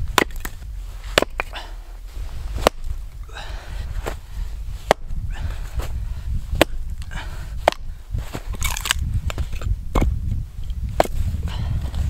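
Hatchet chopping firewood on a wooden chopping round, about eight sharp cracking blows spaced one to two seconds apart, with softer scraping and rustling of wood between some of them.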